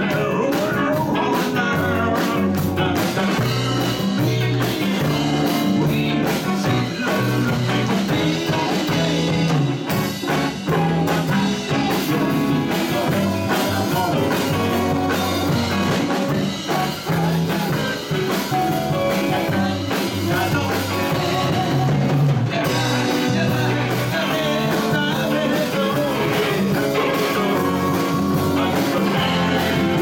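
Live rock band playing a song with a man singing lead: electric guitars, bass, drum kit, congas and keyboards.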